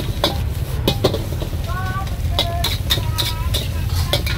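A metal spatula clanking and scraping against a steel wok while stir-frying, in quick irregular strokes over a steady low rumble.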